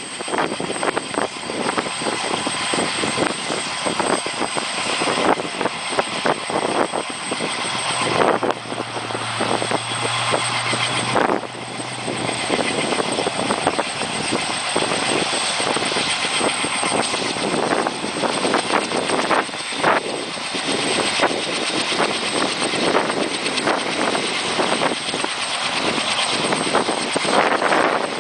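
UH-60 Black Hawk helicopter running on the ground with its rotors turning: loud, steady turbine and rotor noise with a thin high whine over it.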